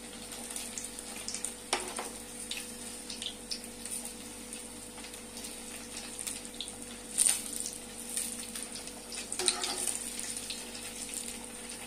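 Hot oil sizzling and crackling steadily as paneer-stuffed bread balls deep-fry in a steel kadhai, with a few sharp clicks of a perforated metal skimmer against the pan, the loudest about seven and nine and a half seconds in.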